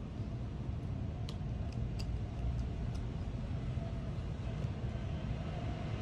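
Steady low background rumble, with a few faint light clicks as a small nail-polish bottle is handled.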